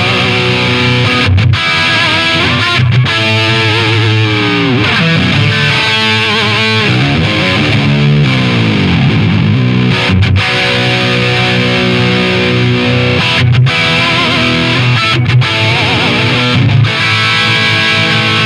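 Distorted electric guitar played through a Marshall DSL50 JCM2000 valve head and a Celestion G12T-75 speaker in a Marshall 1960 Lead cabinet: a lead riff of held notes with vibrato and bends that slide down in pitch.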